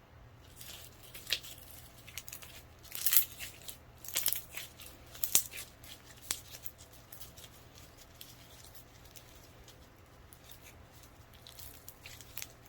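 Clear slime being stretched and worked by hand, giving short sticky crackles and tearing sounds, scattered and uneven, loudest a few seconds in.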